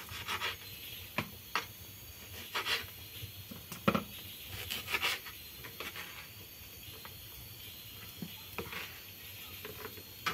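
Light, irregular taps and rustling of hands and utensils handling salad ingredients, with a few sharper clicks.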